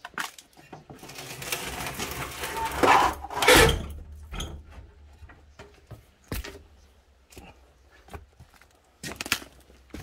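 Crunching and rustling of dry leaves and debris underfoot, with scraping against wooden boards that builds to a loud scuff about three and a half seconds in. Scattered sharp knocks of wood and junk follow.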